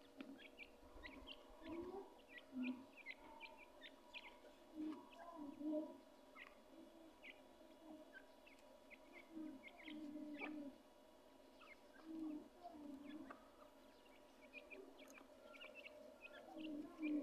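Francolin chicks peeping faintly: short high chirps scattered all through, with short lower calls in between, over a faint steady hum.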